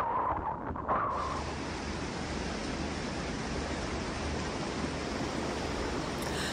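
Wind buffeting the microphone for about a second, then a steady rushing hiss of muddy floodwater streaming across a road.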